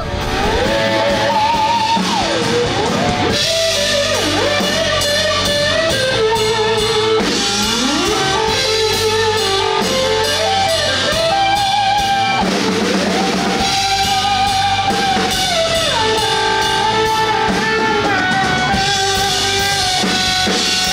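Rock music with drum kit and guitar, carried by a lead line that slides and bends in pitch.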